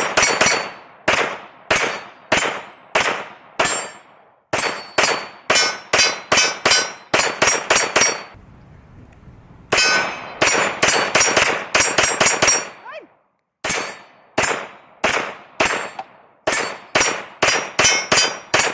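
9mm competition pistol fired in quick strings of shots, about two to three a second, each crack followed by a short metallic ring. There are two brief pauses, one about eight seconds in and one about thirteen seconds in.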